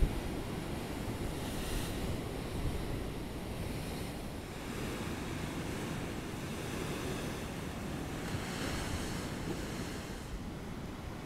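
Ocean surf breaking and washing over rocks in a steady rush, with swells of hiss as waves break, and wind buffeting the microphone. A brief knock right at the start.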